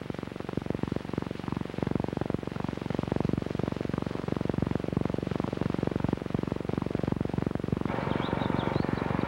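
Dense low crackling rumble of an old film soundtrack with no music or voice. About eight seconds in, short high bird chirps begin over it.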